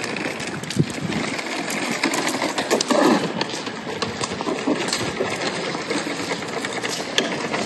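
Footsteps and the rattling of a wheeled suitcase rolling over pavement, with many small clicks.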